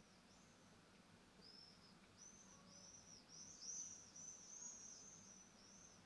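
Faint, high-pitched chirps of a small bird, short arched notes repeated rapidly in a run, pausing briefly about half a second in and loudest a little past the middle. A faint steady low hum lies underneath.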